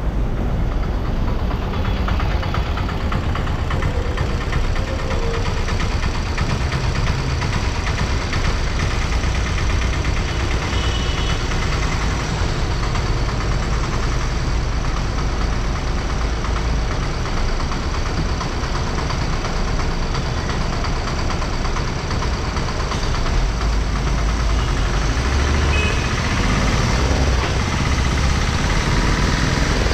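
Steady road noise from a car on the move: a low engine and tyre rumble with an even hiss over it.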